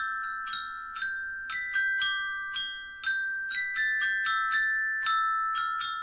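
Background music: a slow melody of struck, bell-like notes, about two a second, each ringing on and overlapping the next.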